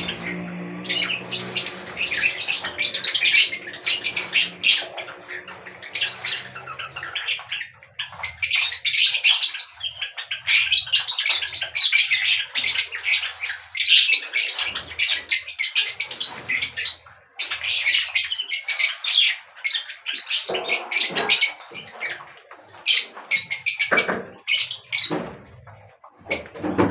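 A group of birds chirping and squawking almost without pause, many sharp high calls overlapping. A low steady hum sits underneath for the first several seconds.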